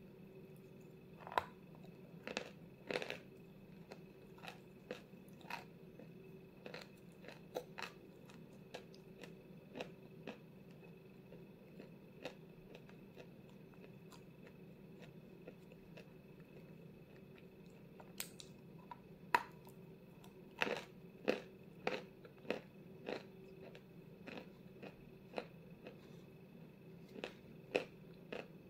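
Crunching and chewing of a white lump of edible mineral earth, Zefirka Vasilpolye. Crisp bites come scattered through, with a burst of several close together about two-thirds of the way in, over a faint steady hum.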